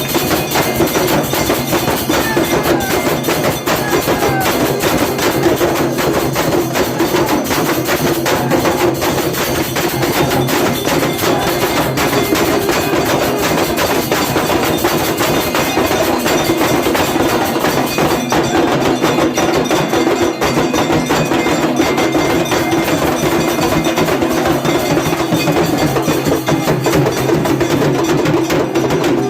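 Aarti percussion: temple bells and other percussion struck rapidly and without pause, making a dense, continuous clangour of ritual worship music.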